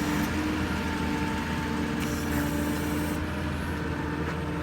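Steady mechanical drone of the truck's diesel engine driving the PTO hydraulic pump while the crane's winch is being worked. It has a held hum and a hiss, and the hiss drops away about three seconds in.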